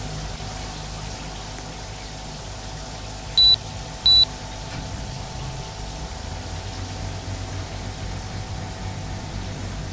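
Air conditioner running with a steady hum. Two short, high electronic beeps come about three and a half and four seconds in, and a deeper hum grows louder about six seconds in.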